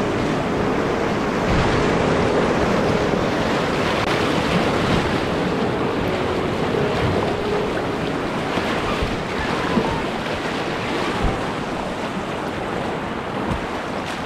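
Rushing whitewater of a river rapid at high flow, heard from a kayak in the middle of it, with water splashing close by and wind on the microphone. A few short knocks come in the last few seconds.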